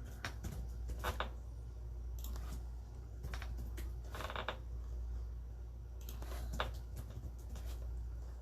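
Scattered short clicks and brief scraping rustles of small objects being handled, in several clusters, over a steady low hum.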